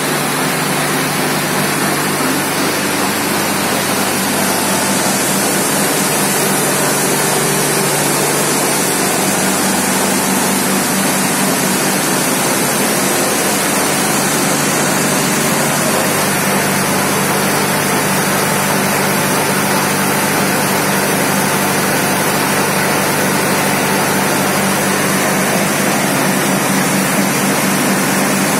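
Tractor engine running steadily with its PTO shaft driving a SarvaShakthi rotavator (rotary tiller) lifted clear of the ground, so the gearbox and blades spin freely in the air. The running noise is loud and even throughout.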